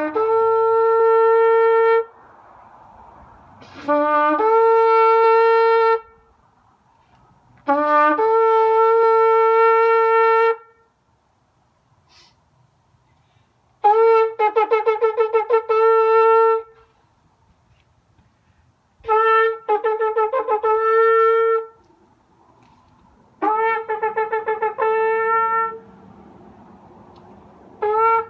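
A shofar sounded in a series of blasts, each scooping up from a low note to a higher one. The first three are held steady for about two seconds; the later ones are broken into rapid staccato pulses.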